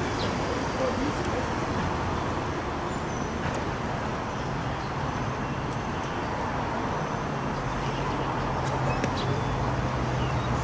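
Steady outdoor background noise, an even hiss with a few faint short high chirps. A low hum grows stronger in the second half.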